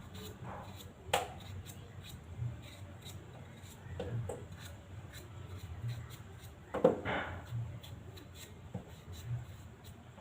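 A potato being peeled by hand, heard as scattered scraping and light knocks. The sharpest knock comes about a second in and the loudest near seven seconds.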